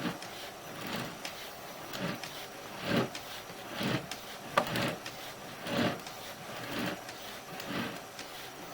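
Sewer inspection camera's push cable being fed through the drain line in hand strokes, a sliding swish about once a second.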